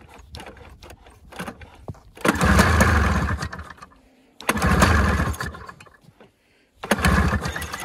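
1996 Ski-Doo MXZ 583's twin-cylinder two-stroke engine being pull-started three times, each time catching and running for a second or so before dying out. The engine will not keep running, which the owner puts down to the carburettor flooding, possibly a stuck needle.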